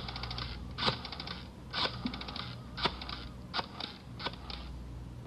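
Rotary telephone being dialed, about six digits in a row. Each digit is a quick turn of the dial followed by a short run of rapid clicks as the dial spins back.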